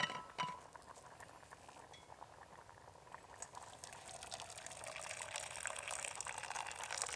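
Two light clinks near the start as a glass jar is handled. About halfway through, water starts pouring from a bottle into an empty steel canteen cup, a steady splashing stream that grows a little louder.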